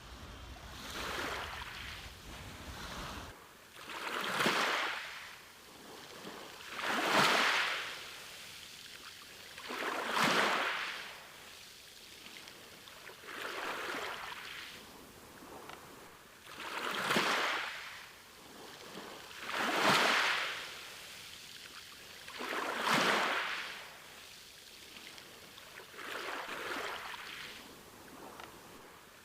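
Sea waves washing onto a beach, each wave a swell of surf that rises and falls away about every three seconds.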